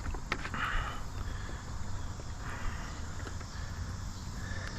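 Faint water splashing and small handling knocks as a freshly caught smallmouth bass is dipped in the river and a bump board is wetted.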